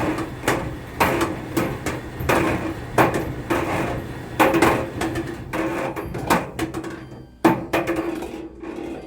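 Samsung dryer running, with a loose piece of plastic and a lint ball knocking inside the tumbling drum: repeated uneven clunks, roughly two a second, over the steady hum of the motor.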